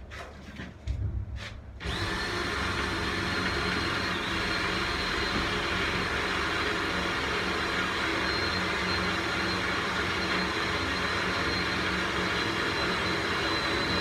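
Cordless drill running steadily under load for about twelve seconds, boring a pilot hole through a batten, after a few short clicks and bursts in the first two seconds.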